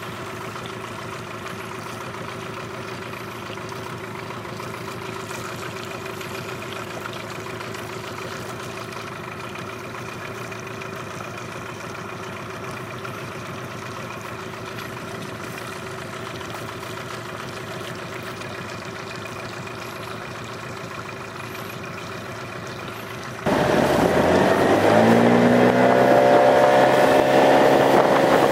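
Yamaha 8 hp outboard motor on an inflatable boat running steadily at low throttle. About 23 seconds in, the sound jumps louder and the engine's pitch rises as the throttle is opened and the boat speeds up onto the plane.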